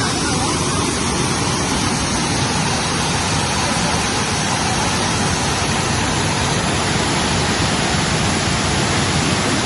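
Waterfall's steady, loud rush of falling water.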